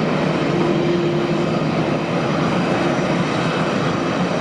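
Jet engines of a taxiing Airbus A321 airliner at low taxi power: a steady, even engine noise with no change in level.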